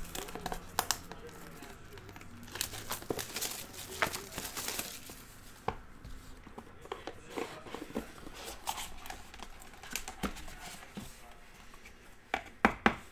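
Plastic shrink wrap crinkling and tearing as it is stripped off a box of trading cards, densest a few seconds in. Then comes sparser handling of the cardboard box as it is opened, with two sharp clicks near the end.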